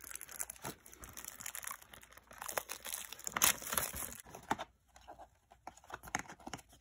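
Plastic wrapping and cardboard packaging of a trading-card box crinkling and rustling as it is handled, with scattered small clicks. The loudest crinkle comes about halfway through.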